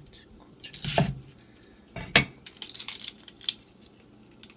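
Kitchen knife cutting an onion into quarters and knocking on the cutting board: two heavy chops about a second apart, then a quick run of lighter taps.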